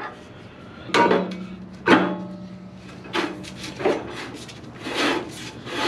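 Metal knocks and clanks as a rear brake drum is worked on over the shoes and hub of a Ford 3000 tractor, with a low ring that carries on under the knocks. There are about six knocks, the loudest about two seconds in.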